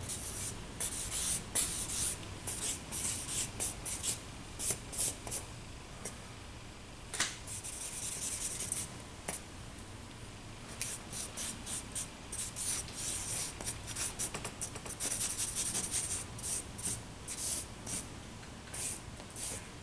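Stick of charcoal scratching across paper in quick line strokes: runs of short, hissing strokes with a few brief pauses between them.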